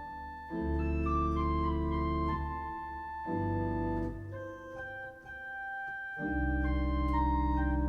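Church organ playing slow, sustained chords, with deep bass notes that drop out and come back in about half a second in, at about three seconds and again at about six seconds, under a slowly stepping melody line.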